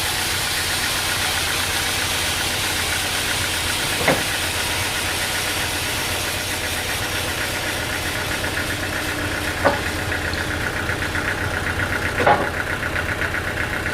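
Sawmill machinery running steadily, with three sharp knocks along the way and a fast, even pulsing that sets in during the second half.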